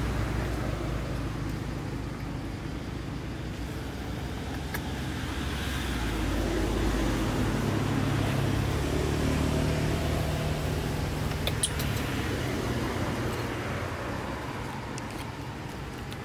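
A passing motor vehicle: a low engine hum that grows louder to a peak about halfway through, then fades away.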